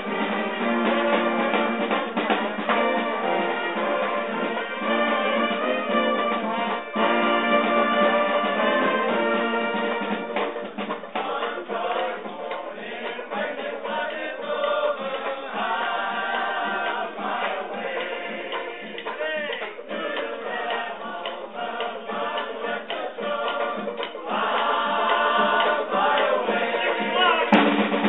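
Live brass band playing a tune together: trumpets, trombones, saxophones and sousaphone. It is fuller and louder at the start, eases off through the middle, and swells again near the end.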